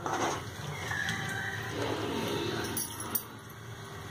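A metal spoon stirring thick curry gravy in an aluminium pot, scraping and knocking against the pot, with one sharper clink about three seconds in.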